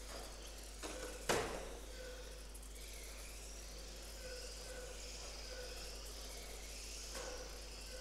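Small electric motors of radio-controlled racing cars whining thinly as they lap the track, the pitch wavering up and down as the cars pass. A single sharp knock sounds about a second in.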